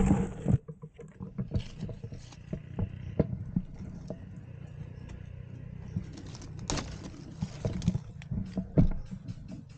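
Scattered crackles, rustles and knocks from dry leaf litter, twigs and gear as an airsoft player shifts while crouched in undergrowth, over a steady low rumble of handling or wind noise on the microphone.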